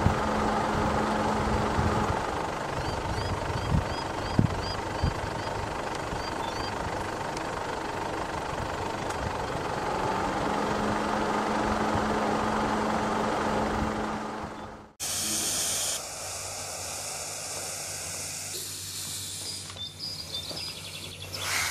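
Outdoor field recording: steady wind-like noise with a low steady hum, and a run of short rising chirps a few seconds in. At about fifteen seconds it cuts off abruptly to a different soundtrack of steady high electronic tones.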